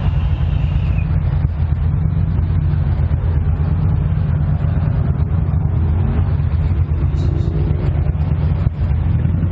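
Steady low engine rumble with road traffic noise, picked up by a motorcycle-mounted camera's microphone beside a bus on a highway.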